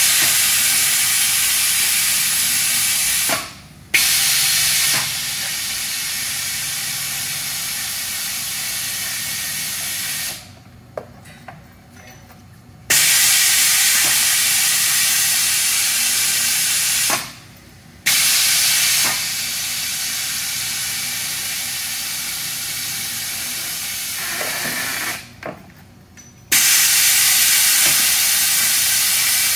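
Compressed air hissing from the all-pneumatic TNM-1 tread nesting machine, in long stretches of several seconds that start abruptly and ease off a little, broken by four short pauses.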